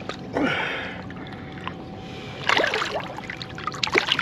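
Water splashing and sloshing against the side of a boat as a striped bass is let go by hand back into the water, in short bursts about half a second and two and a half seconds in, with a faint steady hum underneath and a few sharp knocks near the end.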